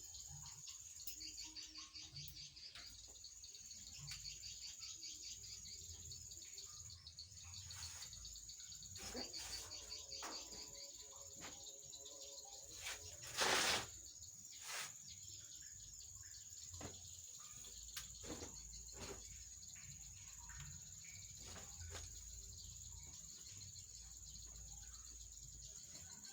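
Steady high-pitched drone of insects, with scattered light knocks and rustles and one short, loud rush of noise about halfway through.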